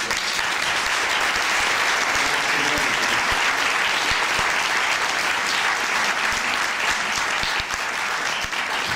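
A packed audience applauding, with steady, dense clapping.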